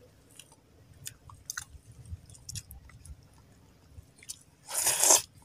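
Faint wet chewing with scattered small mouth clicks, then one loud slurp lasting about half a second near the end: a person sucking up lukot (sea hare egg strands) dressed in vinegar.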